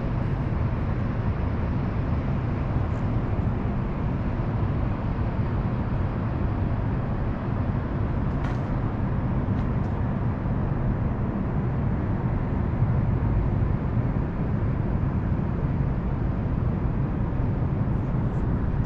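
Steady low rumble of city traffic noise, even and unbroken, with a faint tick about eight seconds in.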